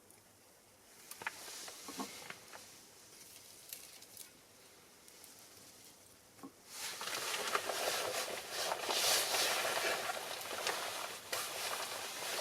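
Pine cones and cherry branches burning in a small fire stand, crackling and popping with a soft hiss; about seven seconds in the fire flares up into a much louder, dense crackling rush.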